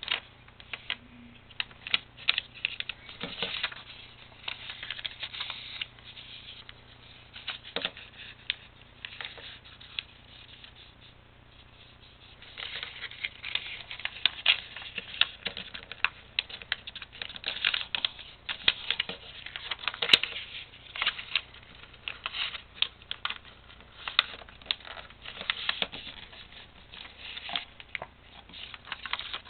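A sheet of paper being folded into a paper airplane by hand: rustling and crinkling, with many quick sharp taps and scrapes as fingers press and run along the creases. A quieter stretch comes about ten seconds in.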